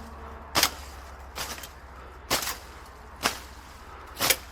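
Blade strokes cutting into brush: five sharp strokes, about a second apart.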